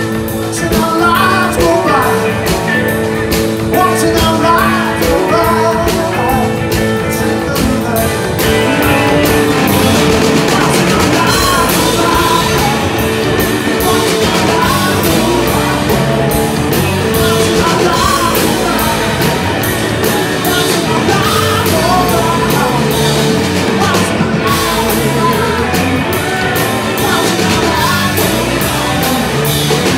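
Rock band playing live: electric guitars over a drum kit, with a wavering lead guitar line on top. The cymbals fill in more densely about eight seconds in.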